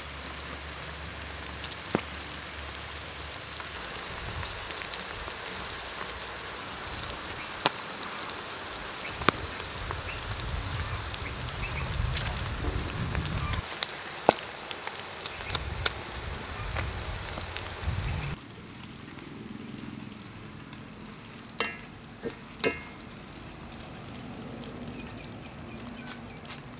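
Silkworm pupae deep-frying in hot oil: a steady sizzle with scattered sharp pops. About two-thirds of the way through, the sizzle turns suddenly quieter and duller, and a few sharp clicks follow.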